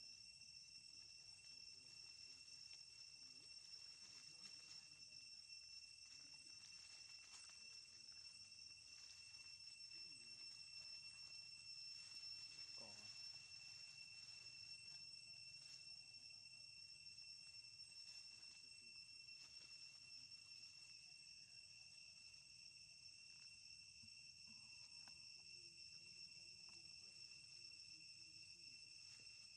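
Faint, steady high-pitched insect chorus droning without a break.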